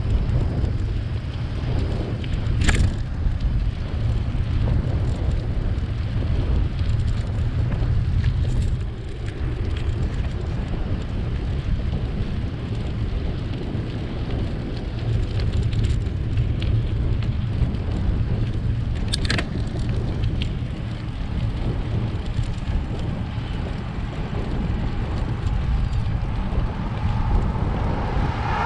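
Wind buffeting the microphone of a camera on a moving bicycle: a steady low rumble with a fainter hiss of road noise above it. Two sharp clicks come through, about three seconds in and again around nineteen seconds.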